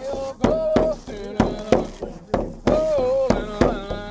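A man yoiking an old reindeer herder's yoik: a Sami chant sung in long notes that bend up and down. He accompanies it on a Sami frame drum struck with a wooden beater in a steady beat of about two to three strokes a second.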